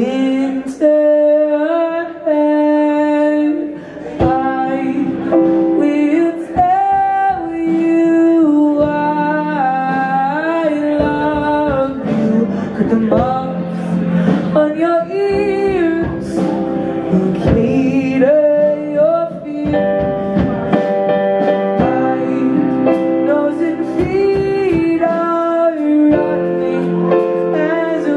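A young male vocalist singing live over his own Yamaha electric keyboard, backed by a drum kit and electric bass guitar.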